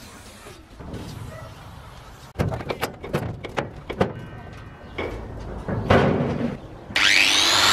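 Steel cabinet lid worked on its freshly oiled hinge: a run of metal knocks and clatters with a brief creak, then a loud bang as the lid comes down about six seconds in. Near the end a power sander starts with a rising whine.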